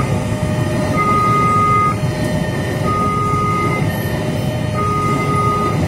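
A level-crossing warning alarm sounding an electronic two-tone signal, alternating a higher and a lower note about once a second, over the steady rumble of passenger-train carriages rolling past on the rails.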